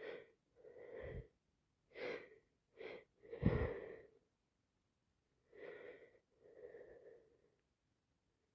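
A woman sneezing and sniffing: about seven short, breathy nasal bursts, the loudest about three and a half seconds in. She is unsure whether it comes from a cold or hay fever.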